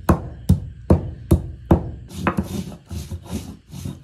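Spices being ground by hand on a flat grinding stone. First come sharp knocks, about two or three a second, as the spices are crushed. About halfway through, these give way to rhythmic rasping rubbing strokes at a similar pace.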